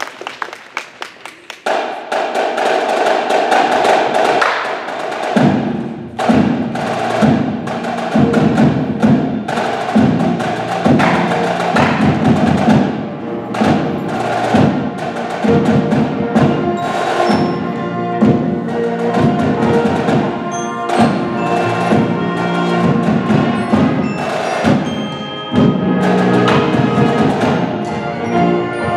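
High school marching band playing: a few sharp clicks at the start, then brass enter on a held chord, and from about five seconds in low brass and drums set up a steady repeating pulse under sustained higher brass, with mallet percussion (marimbas) in the mix.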